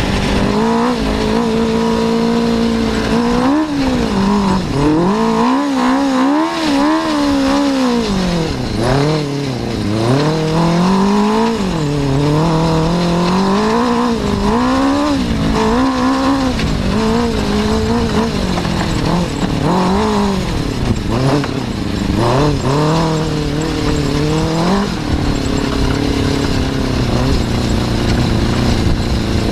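Suzuki RF600 inline-four motorcycle engine powering an off-road buggy, revving up and down over and over as it is driven, its pitch rising and falling every second or two. About 25 seconds in it settles to a steadier, lower note.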